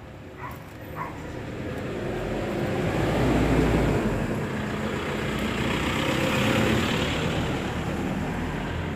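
Road traffic going by: a motor vehicle's engine and tyre noise swells to a peak a few seconds in, then slowly fades.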